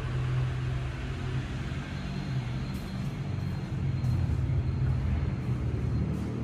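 A low, steady rumble with a few faint clicks.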